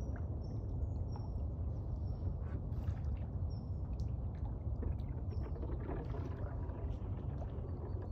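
Water lapping and trickling around a kayak moving over calm water, with a low rumble underneath. A small bird repeats short, high, thin calls.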